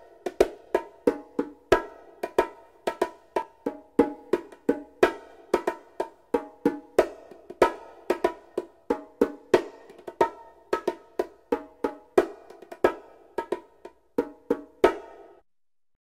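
Bongo drums played by hand in a lively rhythmic pattern, about three strokes a second, mixing higher and lower drum tones. The playing stops shortly before the end.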